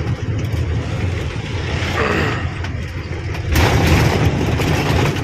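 Goods truck's diesel engine running as it drives, heard from inside the cab, with a louder rush of noise from about three and a half seconds in.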